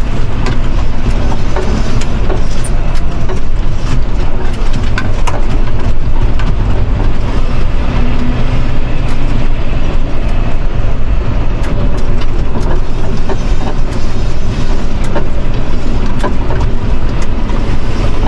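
Tractor engine running steadily under way, heard inside the cab, with a constant low drone and many small rattles and knocks as the tractor jolts over a rough dirt track and field stubble.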